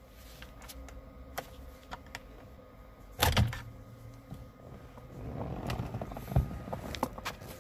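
Plastic clicks of a 2011 Hyundai Sonata's driver airbag module being released with a small screwdriver: light ticks as the screwdriver works the retaining tab, then a loud double click a little past three seconds in as the bag pops loose. After that, rustling handling noise with a sharp knock and a few more clicks.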